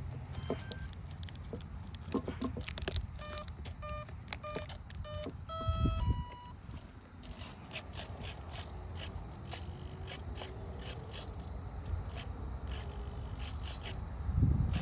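Electronic arming beeps from the jet's 40 A speed controller as its battery is connected: a run of short beeps, then two longer tones, the second higher. Scraping and clicking from the foam airframe being handled runs throughout, with a low bump near the end.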